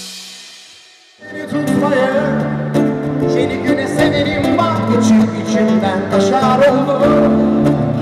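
A man singing into a microphone over a Korg Kross electronic keyboard and an acoustic guitar. The song starts about a second in, after a short fading tail.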